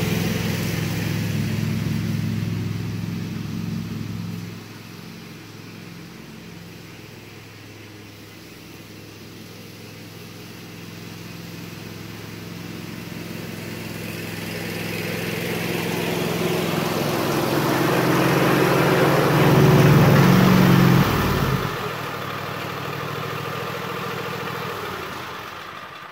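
Cub Cadet XT1 riding mower's Kohler V-twin engine running steadily as it mows. It fades as the mower moves away about four seconds in, then grows louder as it comes back, loudest about twenty seconds in. A second later it drops sharply to a quieter, lower run as the mower pulls up.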